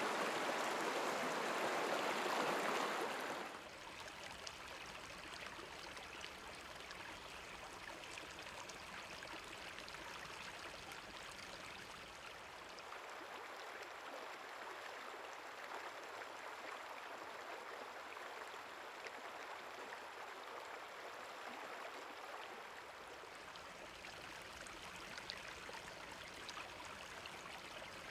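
A small waterfall splashing over rocks, which drops away after about three and a half seconds to the softer, steady sound of a shallow creek running over a rocky bed.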